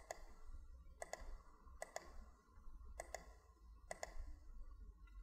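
Computer mouse button clicking faintly about once a second, about five clicks in all, each a quick double tick of press and release. These are the clicks placing Polygon Lasso anchor points around a selection in Photoshop.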